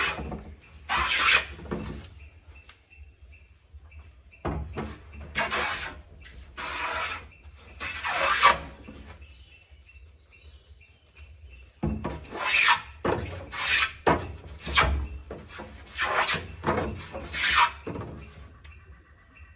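A hand tool rasping across wood in separate strokes, about a dozen in uneven groups with pauses between them.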